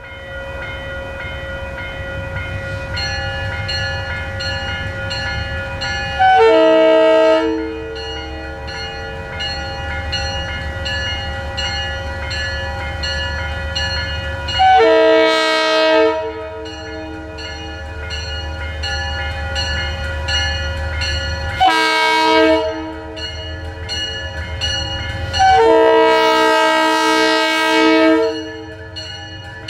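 Metro-North diesel push-pull train sounding its horn in the grade-crossing pattern of long, long, short, long as it approaches, over a steady low rumble. Grade-crossing warning bells ring steadily throughout.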